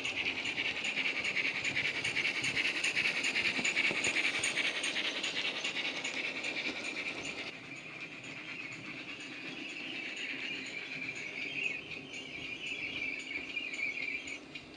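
DCC sound decoder (ESU LokSound 5) in a model GWR 16XX pannier tank locomotive, playing steam exhaust chuffs in an even rhythm through the model's small built-in speaker as it runs. The sound drops a little in level about halfway through.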